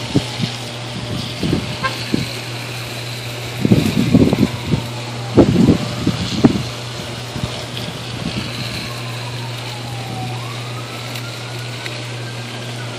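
Burning, arcing power-line transformer giving off a steady electrical hum, broken by loud crackling bursts about four seconds in and again between about five and a half and six and a half seconds in. A faint siren wails in the background, falling, rising, then falling again in pitch.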